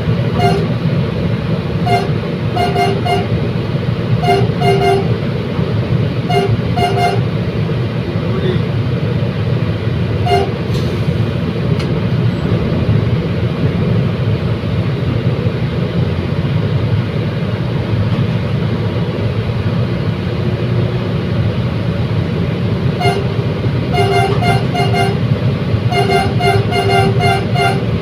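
Commuter train running with a steady low rumble, its horn sounded in groups of short toots: a few at the start and over the first seven seconds, one about ten seconds in, and a rapid series of toots in the last five seconds.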